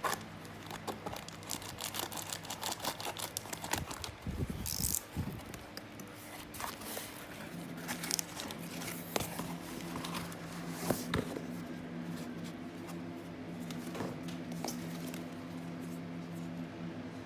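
Packaging being handled while a toy car is unboxed: plastic and cardboard crinkling and rustling with scattered clicks and taps. A steady low hum comes in about seven or eight seconds in and stays.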